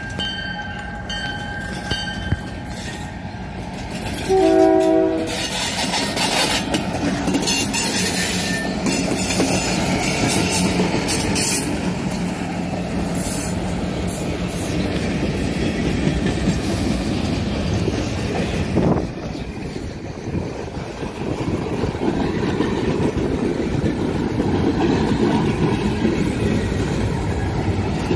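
Freight train passing close by: a crossing bell rings at first, then the lead locomotive sounds a short horn blast about four seconds in. The two EMD GP38-2 diesel locomotives rumble past, followed by freight cars clattering over the rails with some wheel squeal.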